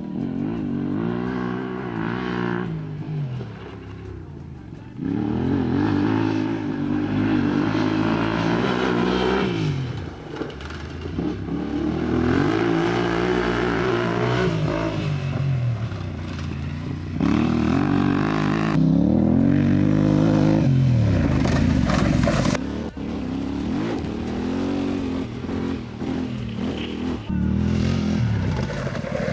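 Adventure motorcycle engine under load, its pitch rising and falling over and over as the rider accelerates and backs off, every few seconds.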